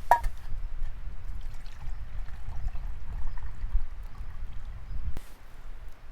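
Water trickling over a low, steady rumble, with a sharp click at the start and another about five seconds in.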